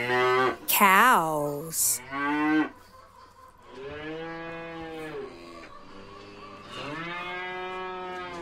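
A domestic cow mooing: two long, drawn-out moos, one starting about four seconds in and the other about seven seconds in.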